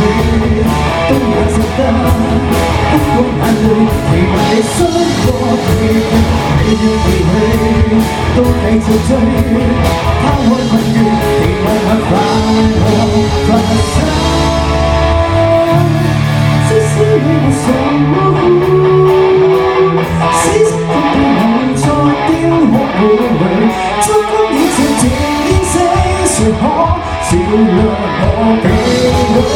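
Rock band playing live: drum kit, electric guitar and bass, with a singer's voice coming in over the band about halfway through.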